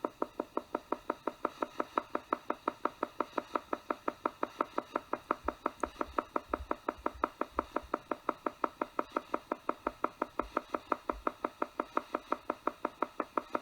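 Theta meditation sound: a rhythmic pulsing tone beating evenly at about five or six pulses a second, a theta-rate isochronic beat meant to induce deep relaxation.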